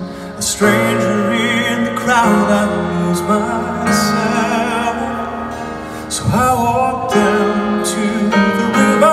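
Live orchestral ballad heard from the audience in an arena: a male voice sings slow, sustained lines with vibrato over an orchestra.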